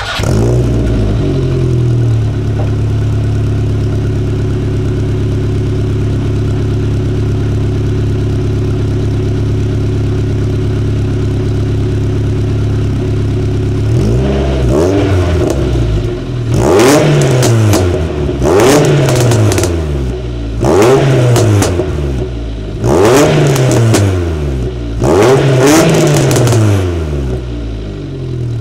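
Audi TT engine heard at the tailpipes through a de-catted exhaust (catalytic converter removed). Just after starting it flares and settles within a couple of seconds to a steady idle, and about halfway through it is revved in short blips about every two seconds, each rising and falling back to idle.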